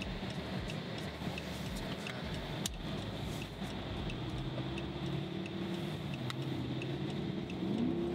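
Chrysler 300C's 5.7-litre Hemi V8 running on its first test after an intake manifold gasket replacement, its engine note shifting in pitch and rising near the end. A faint, even ticking sounds about every two-thirds of a second.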